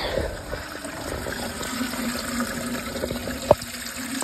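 Water running from a bathroom basin tap and draining down through the newly fitted basin waste and trap, run to test the new connections for leaks. One sharp knock about three and a half seconds in.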